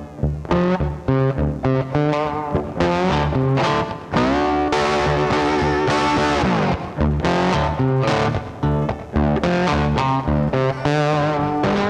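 Background rock music with distorted electric guitar and bass over a steady beat, with a long bending guitar note a few seconds in.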